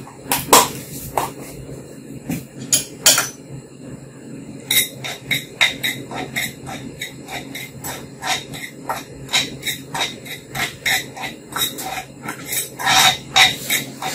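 Metal spoon clinking and scraping against a clay pot while sugar is stirred as it caramelizes for caramel colour. A few strokes come at first, then quick, irregular strokes from about five seconds in, over a steady low hum.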